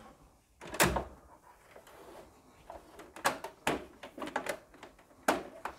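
Plastic mesh filter of a split air conditioner's indoor unit being pushed and clicked into its seat: a sharp plastic knock about a second in, then scattered light clicks and rattles, with louder knocks a little past three seconds and again near the end.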